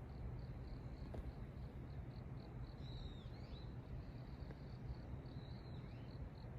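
Forest ambience: an insect chirping in an even high pulse, about four chirps a second, with a bird's short whistled call twice, about three seconds in and again near six seconds, over a low steady background hum of noise.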